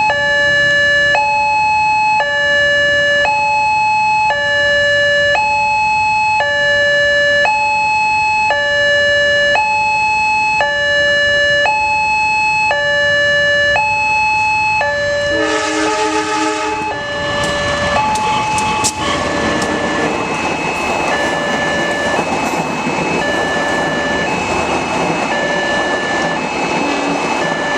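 Railway level-crossing warning alarm sounding an alternating high–low two-tone signal, switching about once a second. About halfway through, a train horn sounds for a second or two. The train then passes with a steady rushing rail noise and a few sharp clacks while the crossing alarm keeps sounding.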